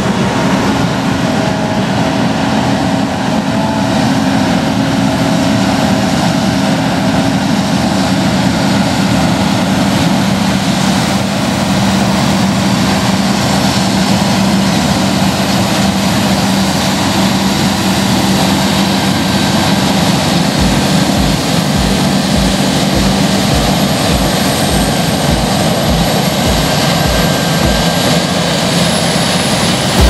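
Claas Lexion 760 combine harvester working under load as it cuts wheat: a loud, steady engine and threshing-machinery drone that grows closer as the machine passes, its held tones shifting slightly about a third of the way in.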